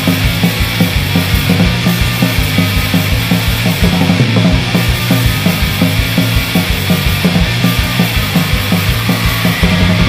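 Hardcore punk band recording played at full tilt: dense, loud band sound over a fast, steady drum beat.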